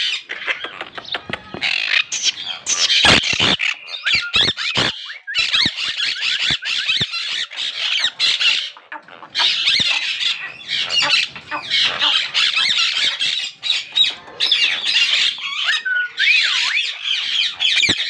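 Monk parakeets (quaker parrots) squawking harshly and almost nonstop at close range, as the pair guards its nest pot of eggs. A few sharp knocks come about three to five seconds in.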